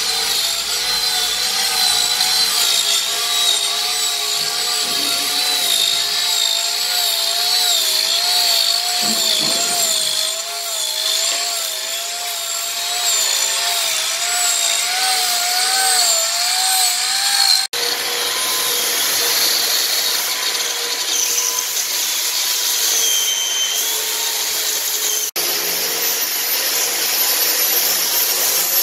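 Electric angle grinder with a wood-carving disc running and cutting into a log, its motor whine wavering up and down in pitch as the disc bites into the wood. About two-thirds in, the sound cuts to a steadier, hissier power-tool grinding of wood, and near the end to a narrow belt-sander attachment on a grinder sanding a carved piece.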